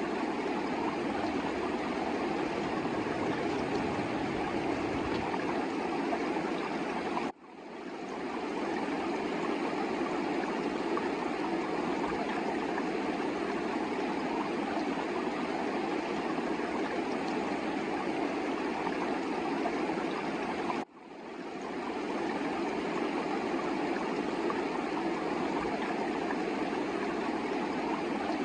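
Fast-flowing river water running in a steady rush. It drops out abruptly twice, about seven seconds in and again about twenty-one seconds in, and fades back up within a second each time.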